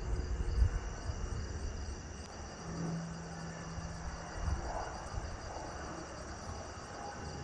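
Crickets chirping in a steady, high-pitched night chorus over a low rumble, with a couple of soft thumps and a brief low hum about three seconds in.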